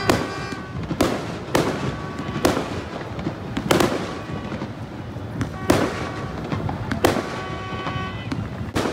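Fireworks going off: a string of sharp bangs about a second or so apart, some louder than others, with crackling between them.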